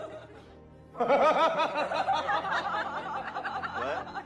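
Human laughter: quick, overlapping "ha-ha" bursts starting about a second in and running on.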